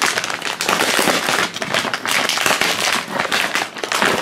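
Crinkly plastic blind-bag packaging being torn open and handled by hand: a dense run of crackles.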